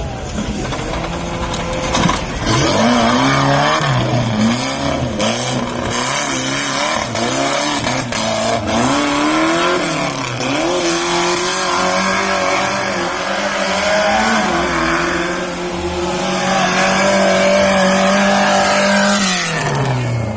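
Off-road 4x4's engine revving hard, its pitch rising and falling again and again as it works. Near the end it holds a steady high rev for a few seconds, then winds down.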